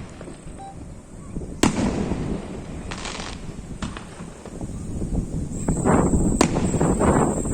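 Aerial fireworks bursting: a single sharp bang about a second and a half in, a couple of softer bangs, then a dense, louder run of bursts and crackling in the last two seconds.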